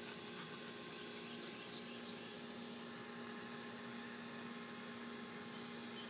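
Steady background hum made of a few fixed tones, with a steady high drone above it.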